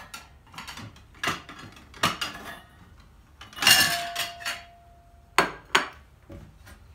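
Dishes clinking and knocking as plates are handled in a kitchen cupboard, with one loud clatter about four seconds in whose ring carries on for a second or so, then two more sharp knocks.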